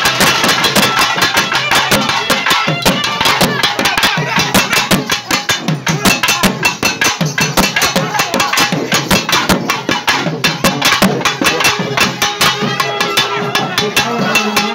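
Traditional South Indian festival drums beaten in rapid, loud strokes, with a crowd's voices.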